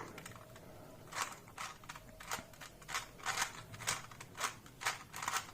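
2x2 Rubik's Cube being scrambled by hand: its plastic layers turned in a run of short clicks, two or three a second, starting about a second in.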